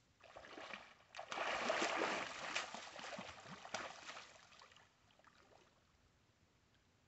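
Water splashing and sloshing at the water's edge. It rises about a second in, is loudest for a second or so, and dies away around five seconds in.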